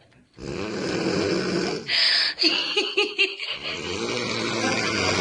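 A young woman snoring in her sleep: two long snores, one starting about half a second in and one in the second half, with a short choppy run of sounds between them.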